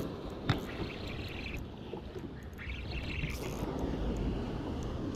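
Wind buffeting the microphone over the wash of the sea on a rocky shore, with one sharp click about half a second in and two short, higher rasps.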